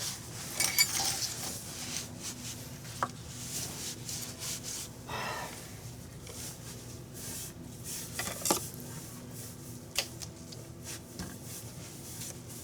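Rubbing and handling noises of a kitchen slicer being wiped and handled on a counter, with a few sharp light knocks.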